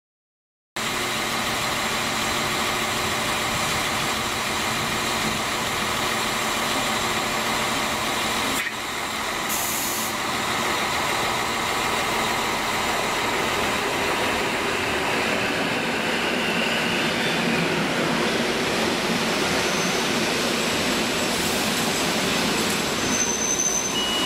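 EN57 electric multiple unit running along the platform: a steady running noise with a constant whine, starting suddenly about a second in, with a few short high squeals near the end.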